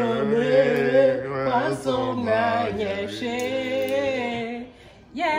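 Singing, slow and wordless-sounding, with long held notes that bend in pitch and a drop in level just before the end.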